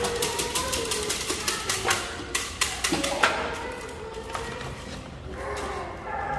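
Empty metal cans, plastic bottles and cups clattering and clicking in a plastic kiddie pool as puppies climb on its rim and a stick pokes among them. The quick clicks and knocks come thick for about the first three seconds, then thin out.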